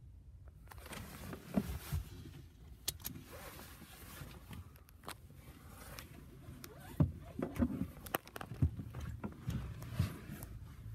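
Handling noise from a phone being moved around inside a car: rustling, clicks and knocks, the sharpest about a second and a half in and again around seven to ten seconds in, over a steady hiss of outside noise that starts about half a second in.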